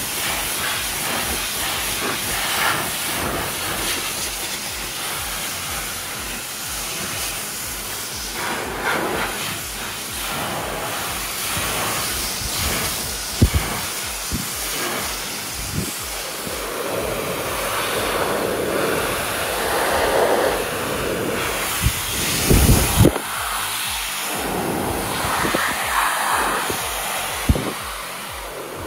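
Handheld blow dryer running, a steady hiss of rushing air as it is aimed into a dog's curly coat. A few brief knocks sound in the second half.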